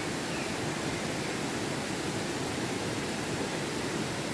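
Mountain river water rushing steadily, an even unbroken wash of sound.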